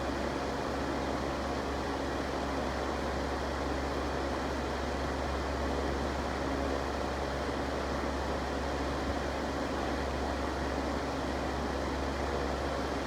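Electric fan running steadily: an even rush of air over a constant low motor hum, with no change in speed.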